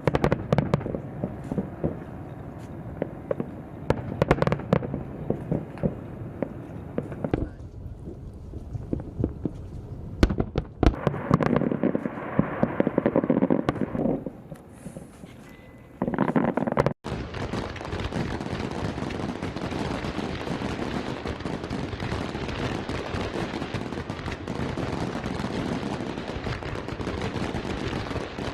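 Fireworks bursting, with repeated sharp bangs and crackling. About 17 seconds in the sound cuts off abruptly and gives way to a dense, steady crackle.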